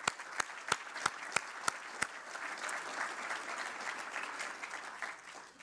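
Audience applauding, with single close, sharp claps about three a second over the first two seconds standing out above the crowd's clapping. The applause dies away near the end.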